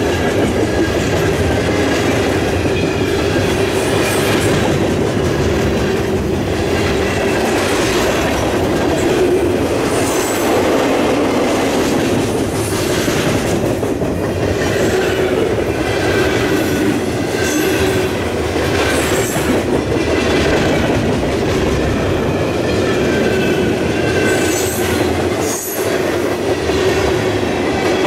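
Freight cars of a mixed freight train rolling past close by: a steady rumble with wheels clacking over rail joints every couple of seconds and faint high wheel squeals now and then.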